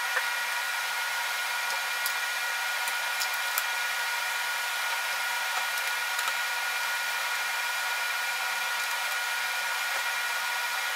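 Steady whooshing noise, like a fan or blower running, with faint steady high-pitched tones under it and a few light clicks.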